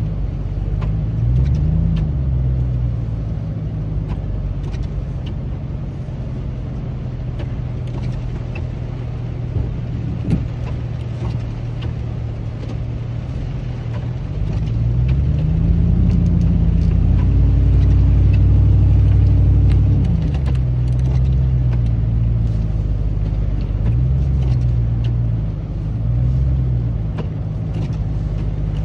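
A 2008 Chevrolet Silverado 2500HD's 6.0-litre gas V8 heard from inside the cab while plowing snow. The engine revs up and down repeatedly and pulls hardest and loudest for several seconds from about the middle.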